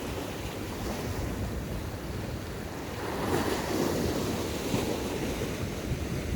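Sea waves washing against shore rocks, with wind buffeting the microphone; a wave surges louder about three seconds in.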